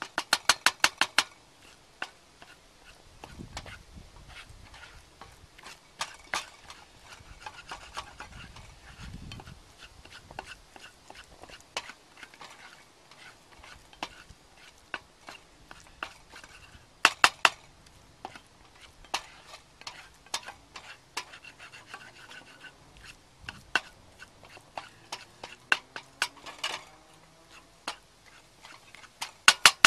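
A utensil clicking and scraping against a pan while scrambled eggs are stirred. There is a quick run of sharp taps at the start, another about 17 seconds in and one near the end, with single taps scattered between.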